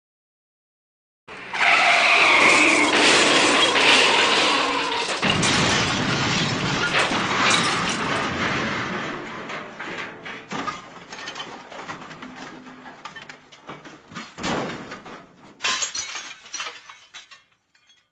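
MGM 'elephant smash' crash sound effect: a sudden loud smash with glass shattering about a second in, followed by falling debris clattering and tinkling that slowly dies away, with a few last clinks near the end.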